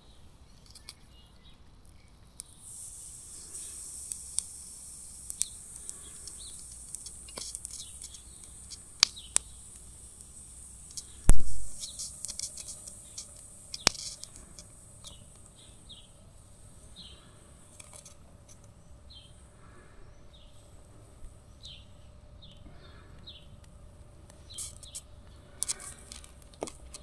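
Carbon rod arcing against lead in a battery-post mold, powered by the 12 V battery: a high hiss full of sharp crackles sets in about two seconds in and stops at around eighteen seconds, with one loud thump about eleven seconds in. Birds chirp through the later part.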